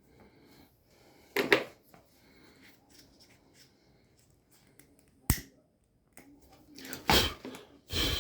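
Handling noises: a loud rustling knock about a second and a half in, a sharp click about five seconds in, and a cluster of scraping and rustling sounds near the end.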